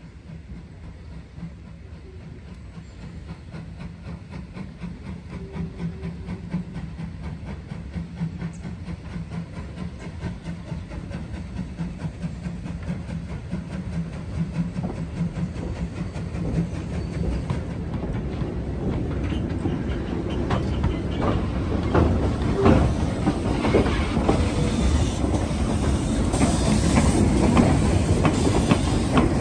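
USATC S160 steam locomotive drawing closer along the track, its running growing steadily louder, with clanking over the rails and steam hissing as it comes alongside near the end.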